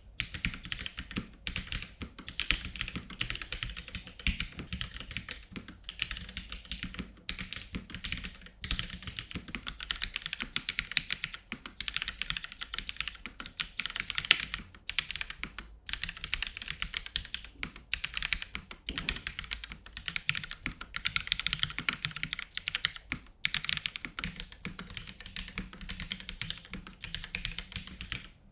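Continuous fast typing on a SENSY Smoke 65% mechanical keyboard with linear Cherry MX Black switches and GMK keycaps: a dense stream of key clacks with a few brief pauses.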